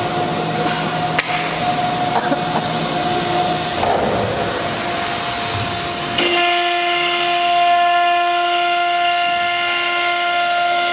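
CNC wood router's spindle motor running at speed with a steady high whine. For the first six seconds a loud rushing air noise lies under it. About six seconds in the rushing drops away and the whine stands out clearly with its overtones.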